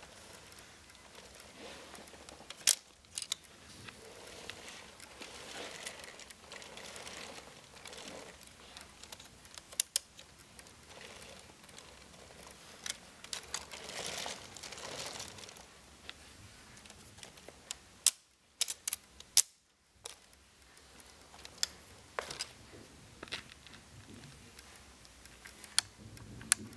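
Hands handling a Lego Technic tractor model: irregular sharp plastic clicks over soft rustling.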